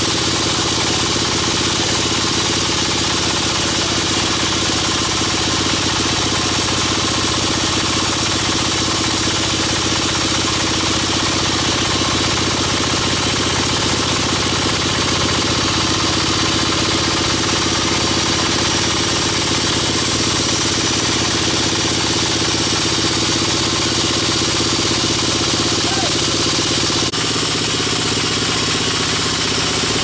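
Large band sawmill running and cutting through pine timber: a steady, loud machine drone with the blade's hiss in the wood, unchanging throughout.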